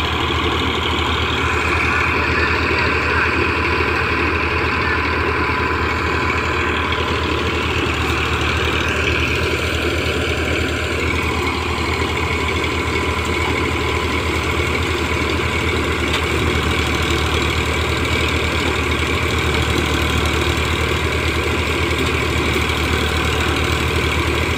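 Eicher tractor's diesel engine running steadily, driving a Vijay threshing machine through its power take-off; the thresher's drum adds an even, continuous noise over the engine as dry crop is fed in.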